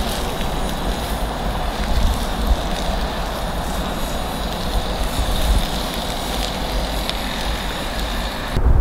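Campfire embers crackling faintly under foil-wrapped sweet potatoes, over a steady outdoor hiss and a low wind rumble on the microphone.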